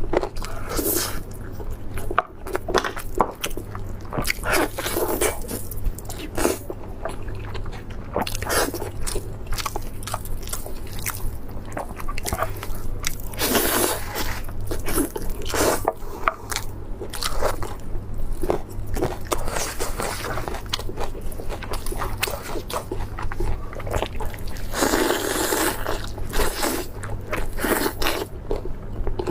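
Close-miked eating: irregular crunchy bites and chewing of food, over a steady low hum.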